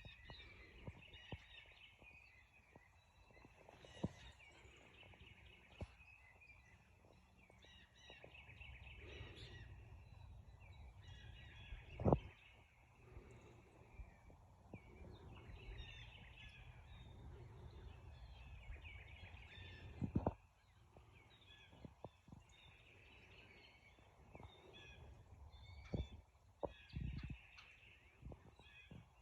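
Many small birds chirping and calling over and over, faint, with a low rumble in the middle stretch. A few sharp knocks stand out, the loudest about twelve and twenty seconds in.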